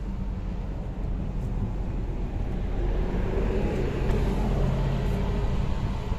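A motor vehicle passing on the road, getting louder to a peak about four seconds in and then easing off, over a steady low rumble.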